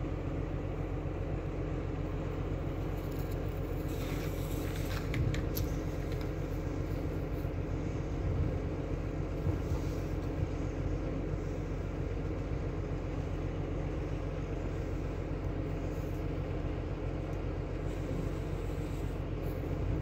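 An engine idling steadily, a low even rumble, with a few faint clicks or knocks about four to five seconds in and again around eight to ten seconds.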